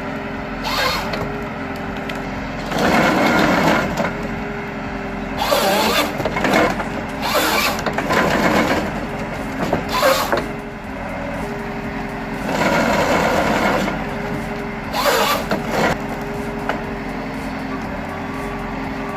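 Tractor-mounted timber harvester at work: a steady engine and hydraulic hum, broken by about six louder noisy bursts, each a second or two long, as the harvester head works the logs.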